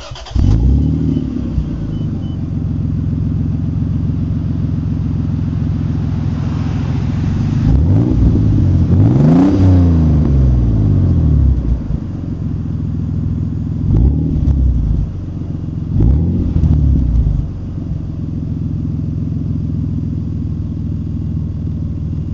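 1996 Toyota Supra twin turbo's 2JZ-GTE straight-six exhaust, through a 3-inch Magnaflow muffler with no resonator, firing up about half a second in and settling to an idle. About a third of the way in there is one long rev that rises and falls, and two short throttle blips follow later.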